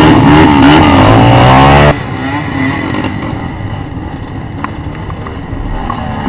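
Dirt bike engine revving hard close by, its pitch rising and falling with the throttle. It cuts off abruptly about two seconds in, leaving a much quieter background with faint engine noise.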